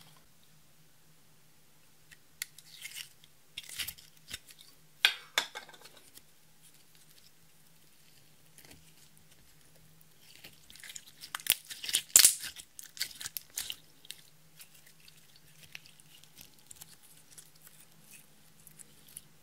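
Clear slime being stretched and worked by hand, making sticky crackles and small pops. They come in short bursts a few seconds in and as a denser, louder run around the middle, with scattered clicks afterwards. A faint low hum runs underneath.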